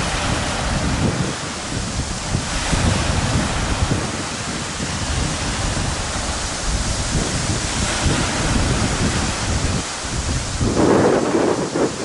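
Strong wind buffeting the microphone in uneven low rumbles, over the rush of choppy waves washing against the shore rocks. The wind swells louder about a second before the end.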